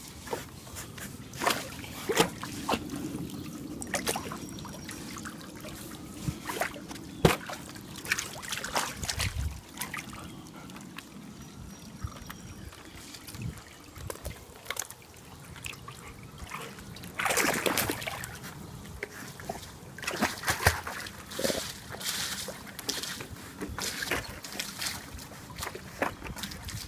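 Pool water splashing and trickling as a golden retriever puppy paddles, with irregular small splashes and a louder stretch of splashing about two-thirds of the way through.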